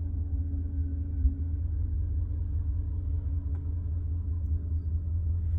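BMW E38 7 Series engine idling, heard as a steady low rumble with a faint even hum from inside the closed cabin. A single soft thump comes about a second in.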